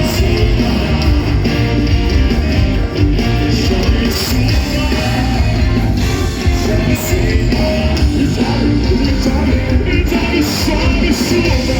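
Rock band playing loudly and steadily, with a sung vocal over drums and guitars.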